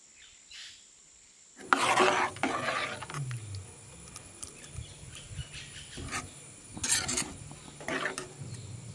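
A metal spoon stirs water into thick curry in a steel pan, making a few scraping strokes. The loudest stroke comes about two seconds in, with shorter ones near the end.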